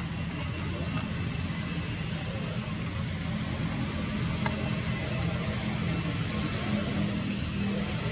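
Steady low mechanical hum with a hiss over it, unchanging throughout, and a single faint click about halfway through.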